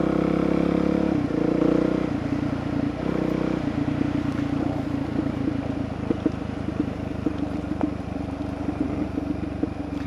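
Motorcycle engine running as the bike rides along a gravel road. The engine note is higher for the first few seconds and dips briefly twice, then settles lower and steady, with scattered light knocks in the second half.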